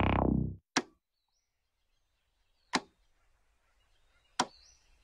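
A synth keyboard music cue fades out within the first second. Three sharp, isolated clicks about two seconds apart follow over near silence.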